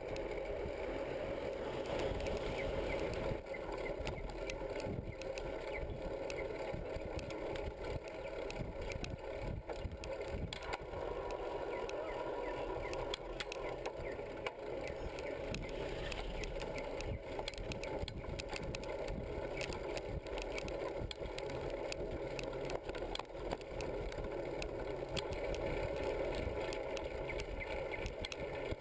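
Ride noise picked up by a camera mounted on a moving bicycle: a steady rush of wind and tyres on the paved road, with frequent small rattles and knocks from the bike and its metal rack.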